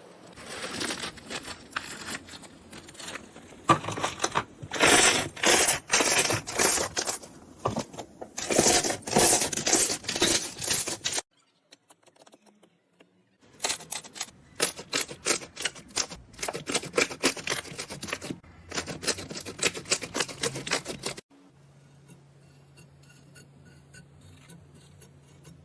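Dry soap being cut and crushed with a blade: dense, crisp crackling and crunching in quick strokes, broken by a silent pause of about two seconds. Near the end the crunching stops and only a quiet low hum with faint ticking remains.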